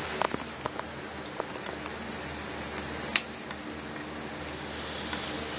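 N-scale model trains running on their track: a steady hiss and faint motor hum with scattered light clicks, a cluster early on and one sharper click about three seconds in.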